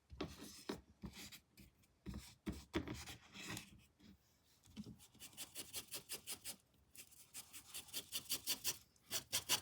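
Paintbrush scrubbing paint across a canvas, a dry scratchy rubbing. It starts as irregular strokes and turns into quick back-and-forth strokes, about four a second, in the second half.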